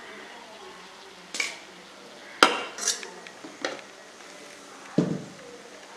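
Metal spoon mixing cooked rice into chicken keema masala in a steel pot, clinking and scraping against the metal several times. The loudest clink comes about two and a half seconds in, and a duller knock about five seconds in.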